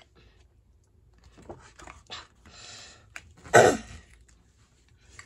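A paperback picture book being opened and its pages handled: a few soft knocks and a short paper rustle, then one short loud burst about three and a half seconds in.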